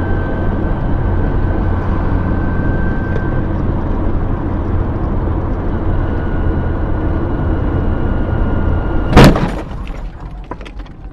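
Steady road and engine rumble heard inside a moving car, then about nine seconds in a single loud bang of a vehicle collision, followed by a few scattered clicks and rattles.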